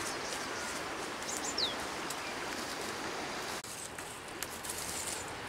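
Steady outdoor background hiss with a few short bird chirps, one a quick falling whistle about one and a half seconds in. The background drops out for an instant a little past halfway.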